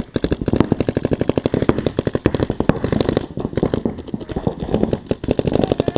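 Paintball markers firing rapidly, many shots a second overlapping into a continuous rattle of sharp pops.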